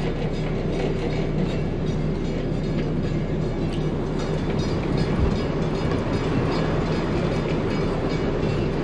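The engines of a 1999 Carver 504 motor yacht running under way, a steady low drone heard from inside the cabin.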